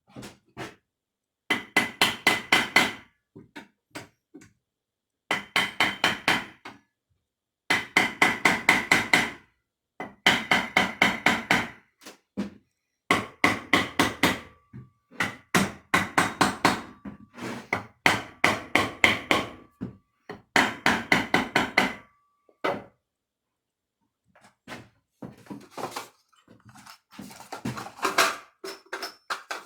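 Rapid light hammer taps on metal in bursts of about ten strikes each, with a brief pause between bursts and a short metallic ring on each strike. Near the end come a few scattered, fainter knocks and clicks.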